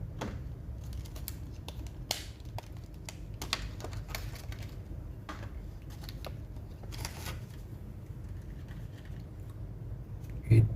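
Scattered small clicks and taps of hands handling laptop parts, the replacement SSD and its drive mounting, irregular and light, over a low steady hum.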